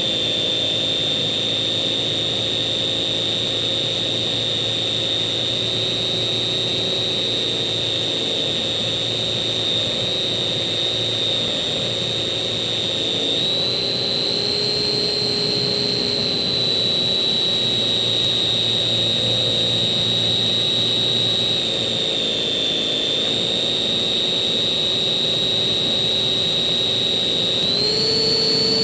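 Electric motor and propeller of a Slow Stick RC model plane in flight, heard from on board: a steady high whine. Its pitch steps up about halfway through, dips briefly, then rises again near the end as the throttle changes.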